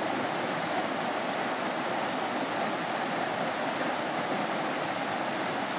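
Fast-flowing creek water rushing steadily through shallow rapids.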